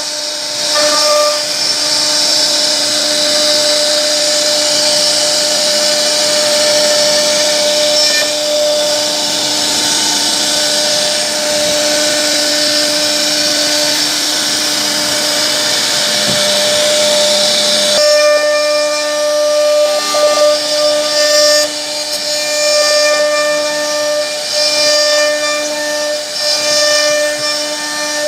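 CNC router spindle running at a steady high-pitched whine while its bit carves into a wooden board, with a continuous cutting hiss. The sound changes abruptly about two-thirds of the way through.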